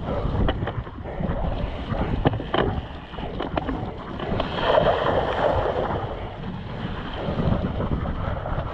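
Mountain bike ridden along a muddy trail: wind on the microphone and the bike rattling over rough ground, with the tyres splashing through a puddle about halfway through.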